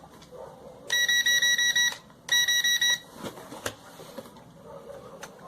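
Electronic beeper sounding two quick runs of rapid, evenly spaced high-pitched beeps, each run about a second long, followed by a few light handling clicks and knocks.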